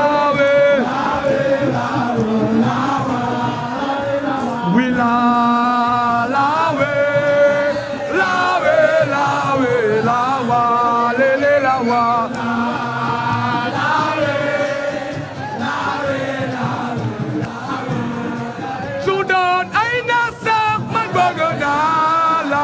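A crowd of supporters singing a chant together in chorus, with music under it.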